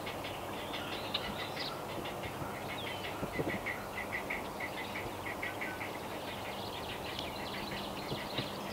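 Great blue heron nestlings calling from the nest: a fast, even run of short ticking notes, about five a second.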